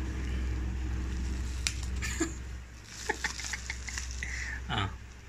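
Bubble wrap crinkling and crackling in scattered small clicks as a cat bites and paws at it, with a quick run of clicks about three seconds in, over a steady low hum.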